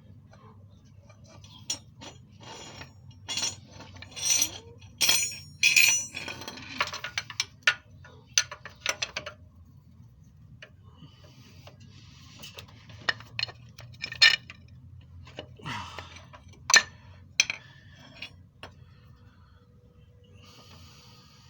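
Irregular metal clinks, clicks and taps of hand tools against the engine and gearbox mount hardware, in two busy stretches with a lull between them, as the gearbox is worked into line with the mount bolts.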